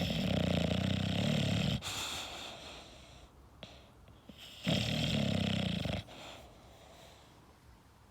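English bulldog snoring. There are two loud, drawn-out snores, one at the start and one just past halfway, each trailing off into a softer breath.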